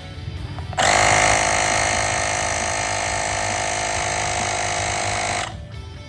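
Woscher i6 cordless tyre inflator's compressor running steadily. It switches on abruptly about a second in and stops near the end.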